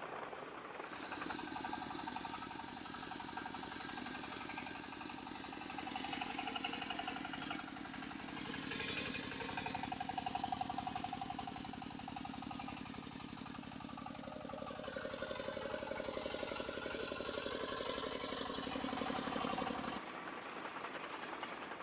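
Engine-like running of a remote-control model vehicle, with a fast rattling knock and tones that shift in pitch. It starts about a second in and stops shortly before the end.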